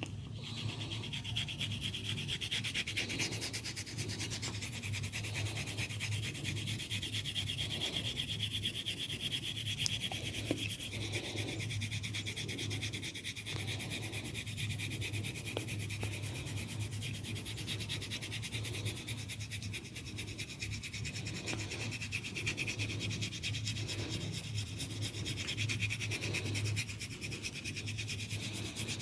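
Hands rubbing and massaging an oiled scalp and hair: a continuous dense rubbing, rustling friction, with a low steady hum underneath.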